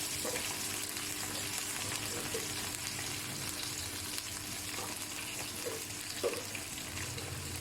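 Onion and spice masala frying in oil in a karahi, sizzling steadily.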